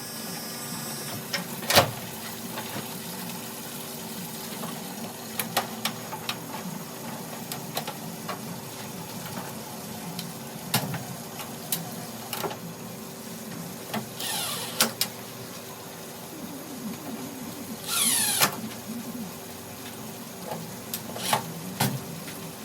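Hands working on a washing machine with tools and parts: scattered clicks and knocks, with two longer scrapes about two-thirds of the way in, over a faint steady hum.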